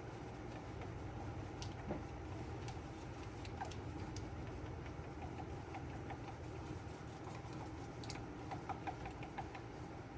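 Catalysed gel coat being stirred in a container: faint scattered ticks and scrapes over a steady low hum, with a quick run of clicks near the end.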